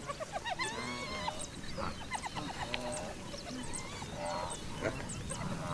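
Several animals calling: short pitched calls, some in quick pulsed runs, with brief high chirps scattered over them.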